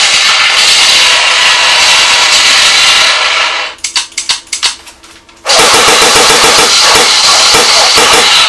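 Two long bursts of M41A pulse rifle automatic-fire sound effect played by the prop rifle's built-in soundboard, each a few seconds of rapid fire. In the pause between the bursts come a handful of sharp clicks.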